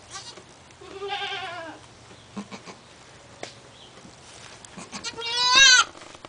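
Cashmere goat bleating twice: a wavering call about a second in, then a louder call that rises in pitch near the end. Short soft clicks and rustles of straw come between the calls.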